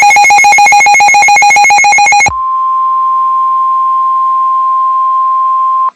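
A loud, rapidly pulsing digital data burst of a NOAA Weather Radio SAME alert header for about the first two seconds. It switches straight to the steady single-pitched 1050 Hz weather radio warning alarm tone, which cuts off abruptly near the end. Together they are the attention signals that set off alert receivers ahead of a test tornado warning.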